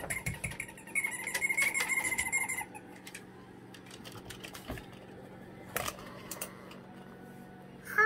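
A cockatoo attacking a toy: a quick run of rattling clicks for about two and a half seconds, then a few single clicks near six seconds.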